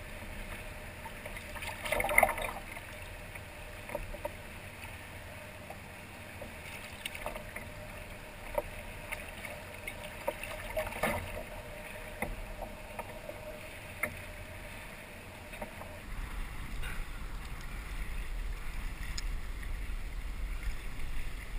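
A hooked smallmouth bass splashing at the surface, loudest about two seconds in and again around eleven seconds, with scattered small clicks and water sounds between. From about sixteen seconds a low wind rumble on the microphone takes over.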